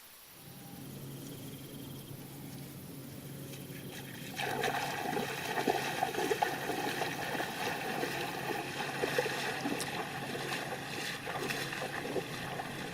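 Water trickling and splashing, growing louder and busier about four seconds in.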